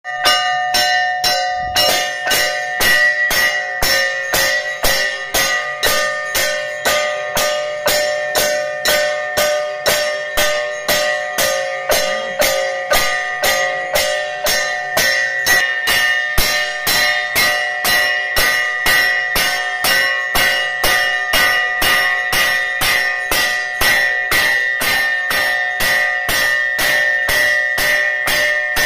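Temple bells ringing for the aarti, struck in a fast, even rhythm of about three strokes a second, their ringing tones overlapping into a continuous clang.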